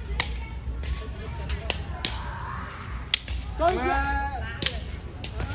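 Khmer shuttlecock kicked back and forth by foot: a series of sharp slaps, the loudest about a second and a half apart, with lighter taps between. A short call from a voice comes near the middle.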